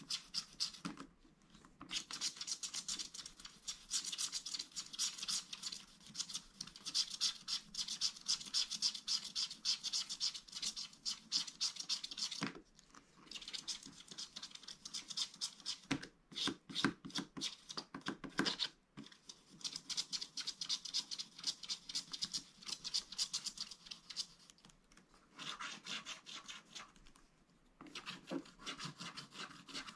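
Wooden stylus scratching the black coating off a scratch-art card in fast, short, rasping strokes, with a few brief pauses.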